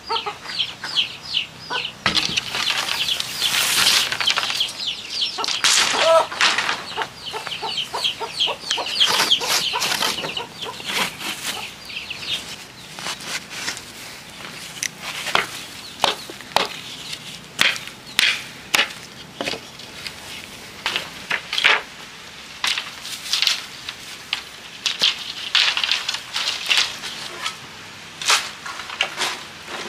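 Rapid, repeated high cheeping of birds, about five short falling chirps a second, through the first half. Throughout, and more often in the second half, come irregular sharp strikes of a hand tool chopping into weedy ground.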